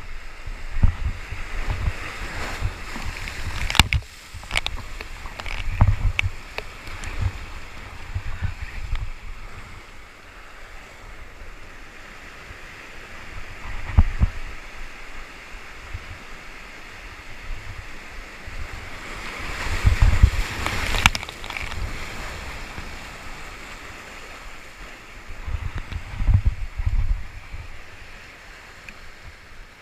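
Surf breaking on and washing through the boulders of a rock jetty, surging loud a few times, with wind buffeting the microphone. A few sharp knocks come through it.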